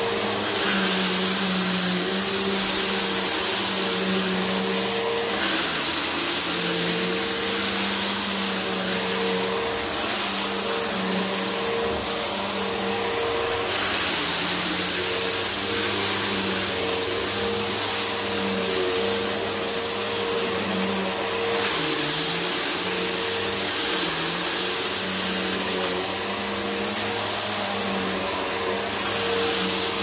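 Helix upright vacuum running on carpet with a steady motor hum and a thin high whine. The airy suction noise swells every few seconds as the head is pushed and pulled through the carpet pile, picking up everyday dirt.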